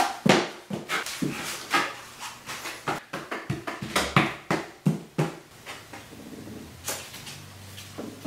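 Drywall knife scraping joint compound onto the wall in a quick run of short strokes, about three a second, easing off after about five seconds.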